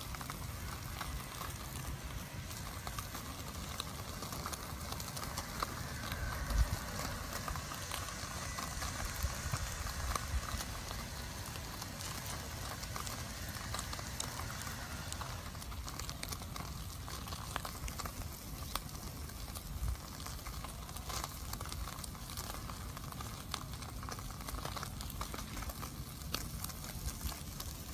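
Small wood fire crackling, with scattered sharp pops over a steady hiss.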